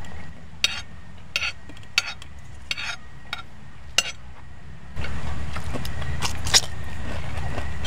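Cutlery clinking against a plate during a meal, sharp clicks about every two-thirds of a second. About five seconds in a steady low rumble comes up and stays.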